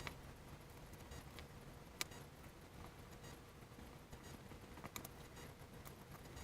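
Quiet room hum with a few short, sharp clicks: one at the start, one about two seconds in and a softer one about five seconds in.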